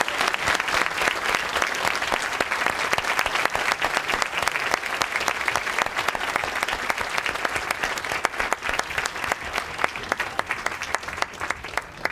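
A large audience applauding, a dense, steady clapping that thins slightly near the end.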